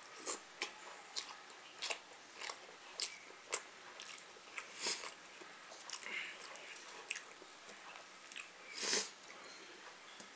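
Close-up eating sounds: biting and chewing food, heard as a string of short, sharp clicks and smacks at uneven intervals, with a longer, louder noise near the end.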